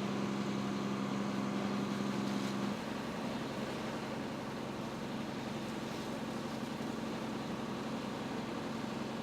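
Heavy engine idling steadily, a low hum that changes a little about three seconds in.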